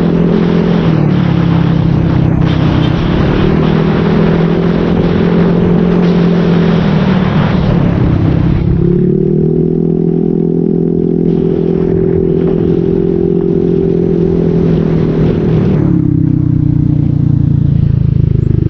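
Motorcycle with an aftermarket SC Project exhaust pipe running under way, its engine note holding steady and then dropping and rising again several times as the throttle changes: it drops about a second in, rises near three seconds, drops and climbs back around eight to nine seconds, and falls again near the end. Wind rush over the microphone is strong in the first half.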